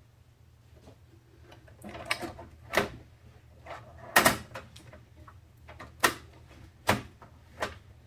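Computer parts being handled and fitted during a PC build: a scuffle about two seconds in, then a string of sharp clicks and knocks about a second apart, the loudest just after the middle. A low, steady hum sits underneath.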